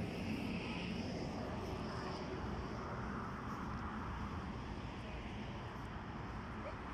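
Steady distant road-traffic noise from a wide multi-lane road, an even hum with a low rumble and no single vehicle standing out.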